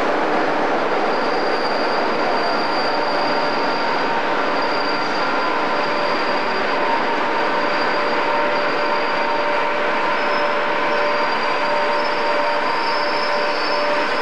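InterCity electric locomotive-hauled passenger train passing along the platform: a continuous rumble of the coaches' wheels on the rails, with a steady high-pitched squeal running over it.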